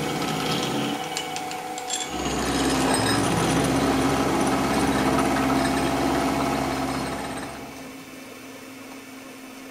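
SIEG SX3L milling machine's end mill cutting solid aluminium: the spindle running steadily through the cut. About two seconds in it changes to a louder, deeper steady run, which drops to a quieter run near the end.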